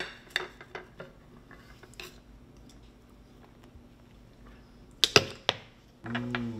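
Light clicks and taps of tableware and a plastic honey squeeze bottle at a plate, then a few sharp clinks of a metal spoon against a small ceramic sauce bowl about five seconds in, the loudest sounds. A short low hum of a voice comes at the very end.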